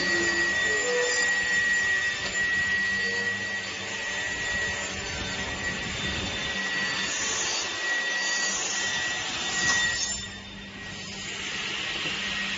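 Automatic four-edge cutting saw for wooden doors running, its saw cutting along the edge of a door panel with a steady high whine over broad machine noise. The whine stops and the sound drops about ten seconds in.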